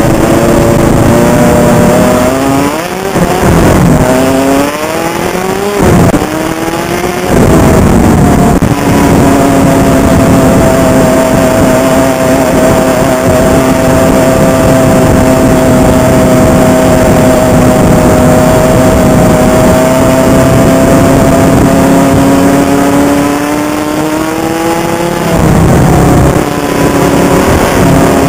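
Honda CR85 two-stroke single-cylinder dirt bike engine heard from the rider's head-mounted camera. In the first several seconds it revs up and drops back four or five times. It then holds steady revs for a long stretch, rises again, and drops back a few seconds before the end.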